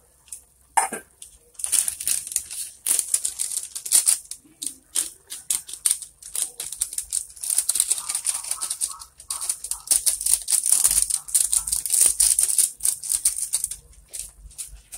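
Squid and sauce sizzling hard in a stainless steel pot, a dense crackle, while a spatula stirs and knocks against the pot. A single sharp knock about a second in.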